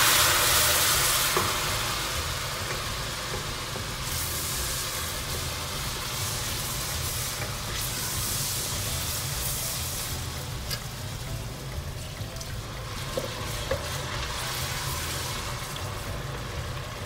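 Golden-fried onions in hot oil in a steel pot sizzling loudly as a splash of water hits them. The sizzle dies down over the first couple of seconds into a steady frying hiss while a wooden spoon stirs them.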